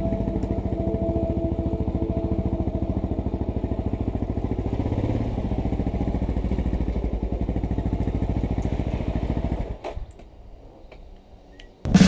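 Suzuki DR-Z400SM's single-cylinder four-stroke engine idling steadily through a LeoVince X3 exhaust, then dying away about ten seconds in, leaving a quiet stretch with a few faint clicks.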